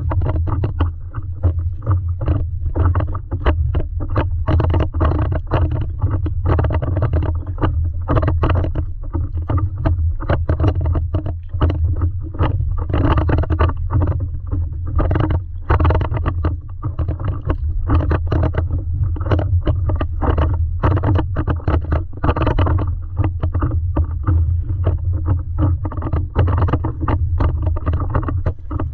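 Lake water lapping and splashing against the front of a stand-up paddleboard close to the microphone, in many quick irregular slaps, over a steady low rumble as the board moves through light chop.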